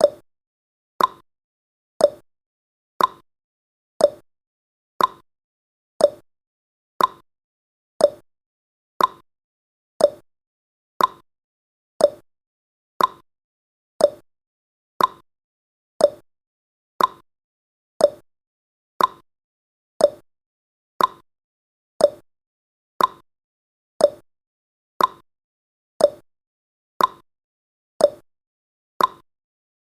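Countdown timer's clock-tick sound effect: one short, sharp tick every second, evenly spaced.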